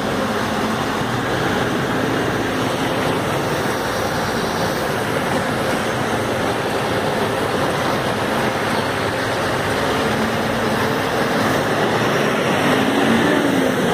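A city bus's engine running close by, amid steady street traffic noise on a busy road.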